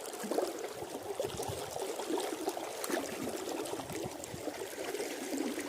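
Stream water trickling steadily, with small irregular splashes.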